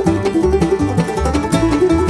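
Background instrumental music with fast, plucked-string picking over a steady bass beat.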